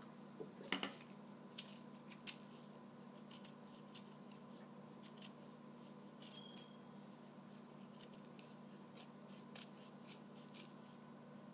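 Westcott scissors snipping, a series of faint, short snips at irregular intervals, trimming excess material from the edge of a white ghost cutout. The loudest snip comes about a second in.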